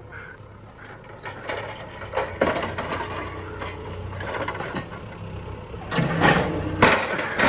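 Excavator engine running steadily under a string of metal clanks and rattles from the bucket working a junked lawn mower, with the loudest crashes about six and seven seconds in.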